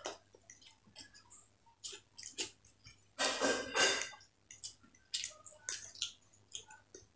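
Two people eating egg chowmein with forks: scattered short smacks and clicks of chewing and of forks on plates, with a louder, longer slurp of noodles about three seconds in.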